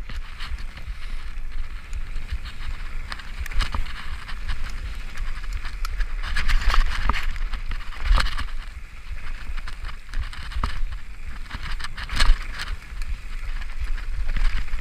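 Mountain bike descending a dirt singletrack at speed: tyres rolling over dirt and leaf litter, with the bike rattling and knocking sharply over bumps several times, the loudest knock near the end. A steady low wind rumble sits on the microphone throughout.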